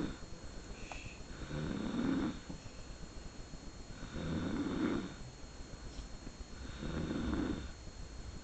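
A woman snoring, three snores about two and a half seconds apart.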